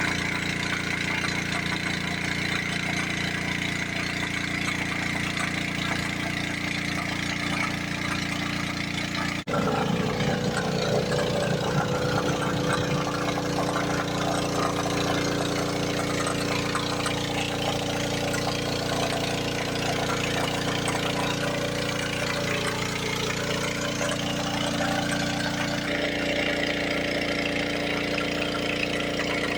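Small petrol engine of a portable alkon water pump running steadily. Its tone changes abruptly about a third of the way in and again near the end.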